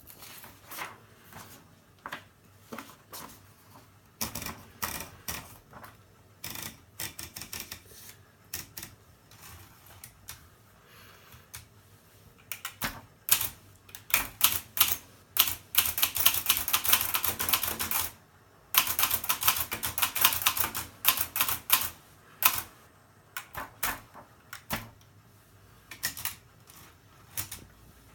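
Hermes Baby portable typewriter being typed on: single key strikes clacking at an uneven pace, with two long runs of fast typing about halfway through.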